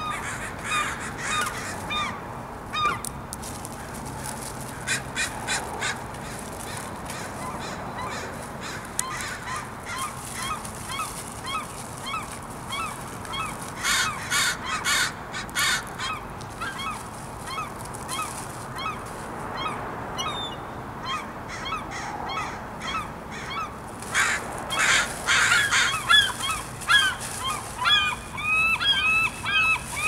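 Seagulls calling again and again with short, pitch-bending cries, mixed with bursts of harsher crow caws. The calling gets busier and louder in the last few seconds.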